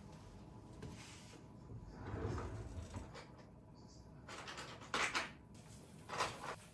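Household handling noises: a dull thump about two seconds in, then two short scraping or sliding sounds near the end.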